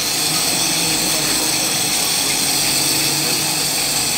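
Steady hiss of a glassworker's gas torch flame as a glass rod is melted in it, with a faint low hum beneath.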